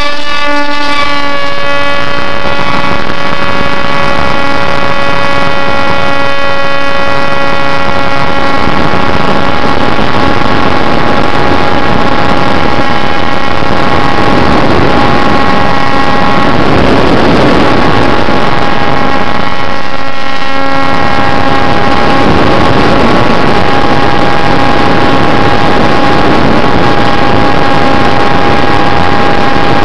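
Bixler model plane's electric brushless motor and pusher propeller running hard, a loud steady whine that rises in pitch at the very start as the motor spools up, over a rush of air noise on the onboard camera's microphone.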